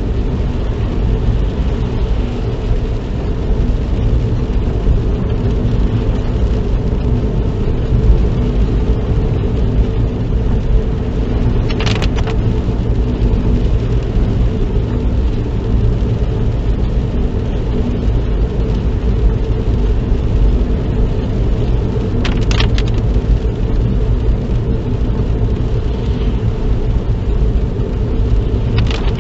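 Steady engine and road rumble inside a moving car's cabin, with three short high swishes about ten seconds apart.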